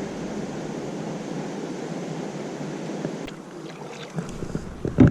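Steady rushing noise of flowing river water and wind around a kayak, easing off about four seconds in. A few faint clicks follow, then a sharp knock near the end.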